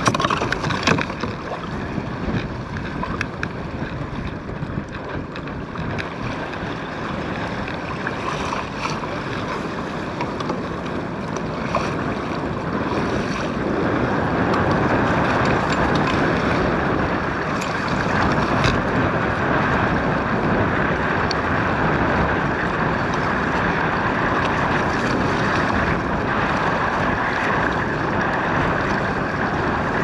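Strong wind buffeting the microphone over choppy water lapping and splashing against a kayak hull. It grows louder about halfway through, with a few short knocks.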